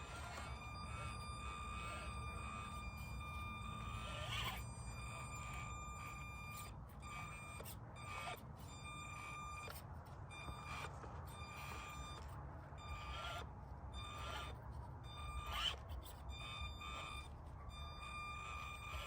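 Axial SCX24 Deadbolt micro RC crawler driving up a hill: a steady high electric motor whine that wavers with the throttle, with a few short knocks and scrapes from the tyres and chassis on the ground.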